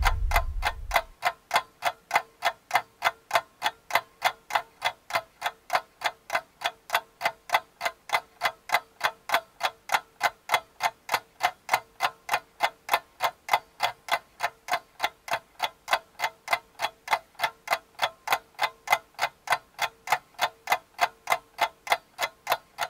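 Clock-like ticking sound effect, a steady even tick about two and a half times a second over a faint steady tone.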